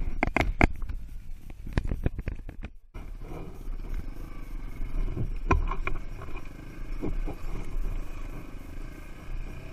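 Knocks and buffeting on the microphone for the first three seconds, then a dirt bike's engine running steadily at low revs, heard from the rider's seat, with occasional knocks as the bike rolls over rough ground.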